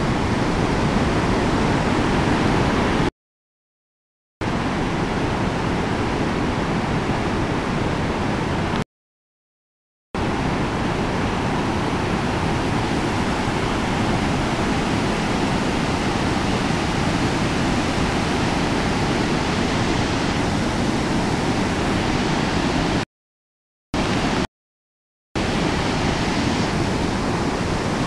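Steady rush of a wide waterfall and the whitewater rapids below it, a dense even noise. The sound cuts out completely four times, for about a second each: near the start, around ten seconds in, and twice close together later on.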